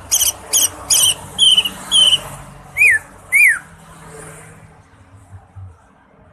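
Cucak ijo (green leafbird) singing: four quick sharp chip notes, then two short down-slurred whistles, and about three seconds in two loud whistles that sweep steeply downward.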